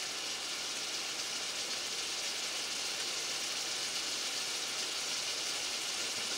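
Chopped onions, bell peppers and sliced sausage sizzling steadily as they sauté in a pot.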